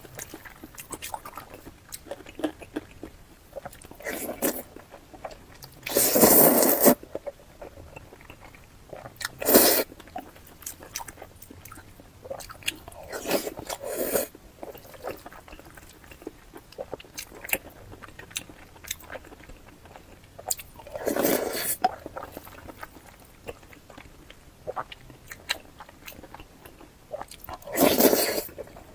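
Close-miked eating: chewing, biting and wet mouth sounds with many small clicks, broken by five louder noisy sounds about a second long each.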